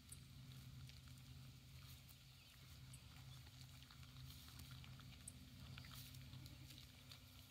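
Faint small clicks and grass tearing as a goat kid grazes close by, over a low steady hum.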